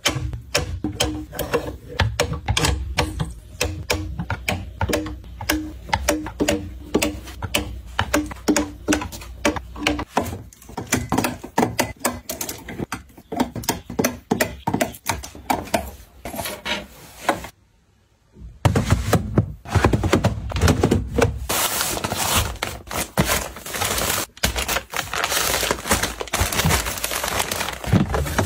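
Small objects being handled and set down one after another: a quick, irregular run of clicks, taps and knocks. There is a short break about two thirds of the way in, then a busier, noisier stretch of clattering.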